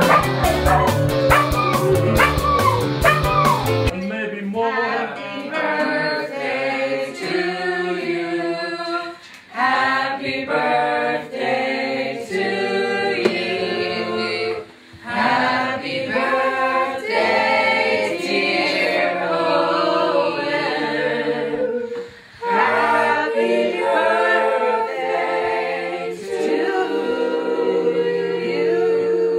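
Music with a steady beat for the first few seconds, then boys singing a song to an acoustic guitar.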